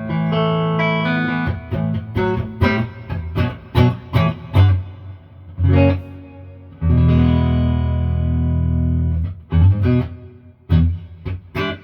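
Electric guitar played through a tube amp with a Talisman reverb pedal set fairly wet: picked chords and single notes, with one chord left ringing for a couple of seconds about seven seconds in.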